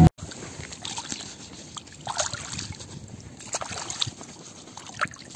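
Faint water sloshing and trickling, with a few small splashes or knocks scattered through it.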